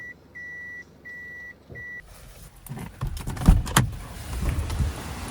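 Reversing warning beeper of a Hiace-based camper van sounding a steady high beep about every three quarters of a second while it backs into a space; it stops about two seconds in. Then a loud rush of wind on the microphone with several sharp knocks.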